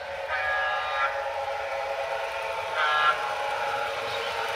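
Onboard sound of a Broadway Limited HO-scale GG1 electric locomotive model: its horn blows one long blast, then a short one about three seconds in, over a steady electric running hum from the model's speaker.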